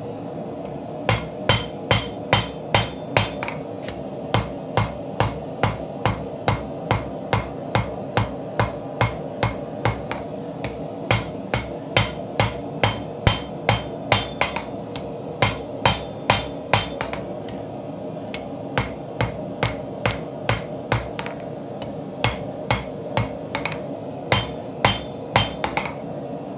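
Hand hammer striking a red-hot Damascus steel knife blade on an anvil, sharp blows about three a second in runs broken by short pauses, over a steady low hum.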